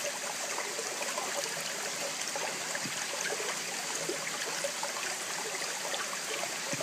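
Shallow rocky bush creek running: a steady trickle of flowing water with small scattered gurgles.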